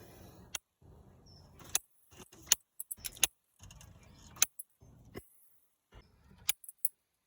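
Scattered sharp metallic clicks and clinks of hand tools being handled and worked on the cam pulley bolt of a Subaru EJ20 engine while it is tightened, with a quick run of clinks about three seconds in and another near the end.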